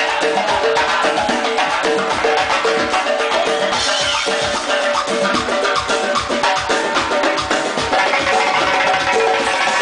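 Doyra, a frame drum with metal rings inside its frame, played in a fast solo of dense, rapid strokes and rings, over a steady band accompaniment with a repeating pitched note.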